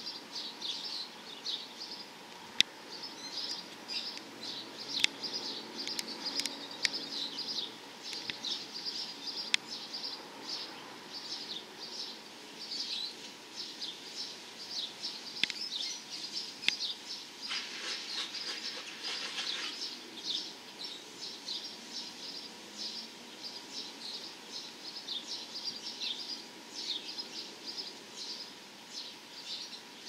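Small birds chirping continuously, quick high-pitched calls several times a second, with a few sharp clicks in the first half.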